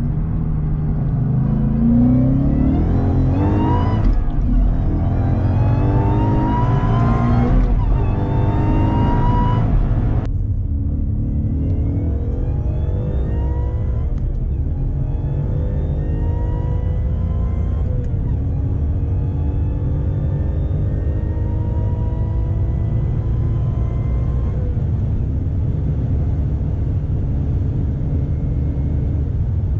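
Supercharged Ford Mustang GT V8 accelerating flat out, heard from inside the cabin. It pulls up through the gears with three quick upshifts in the first ten seconds, then runs a long, slower-rising pull in a tall gear that levels off near the end as it nears 250 km/h.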